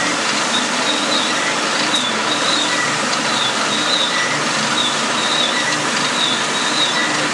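Screw-press manure dewatering machine running steadily, its motor and auger pressing wet cow dung and pushing out the drier solids: a loud, even mechanical noise.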